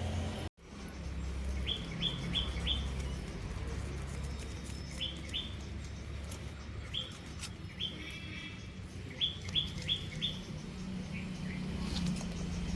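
A bird chirping in short, quick runs of two to four high notes, repeated several times over a low, steady background rumble. The audio drops out completely for an instant about half a second in.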